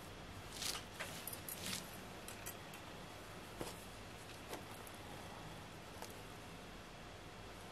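Faint handling noise from hands moving a knife over mesh cloth: a few brief rustles about a second in, then some single soft clicks, over a steady low hiss.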